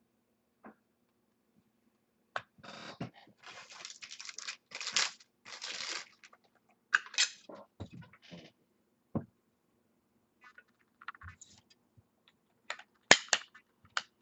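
Trading cards and their packaging being handled: a few seconds of rustling and tearing of plastic and paper wrap, then scattered clicks and short scrapes as cards are slid and set down.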